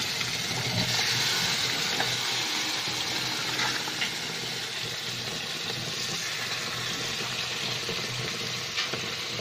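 Watery masala gravy sizzling and bubbling in a frying pan with stuffed brinjals, stirred with a wooden spatula, with a few light taps of the spatula against the pan.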